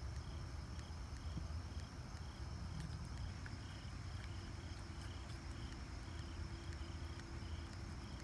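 Insects calling: a steady high buzz with a short chirp repeating about twice a second, over a low rumble.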